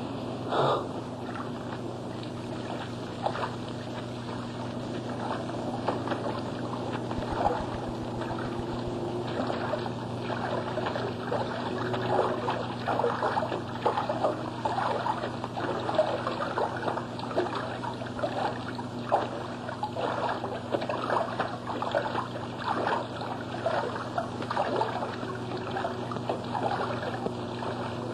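Irregular trickling and splashing of water over a steady low hum.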